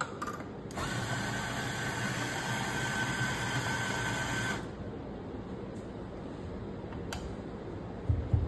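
Electric espresso grinder running steadily with a high whine for about four seconds as it grinds coffee beans into a portafilter, then cutting off abruptly. A sharp click follows a few seconds later, then a couple of dull thumps near the end as the portafilter is handled.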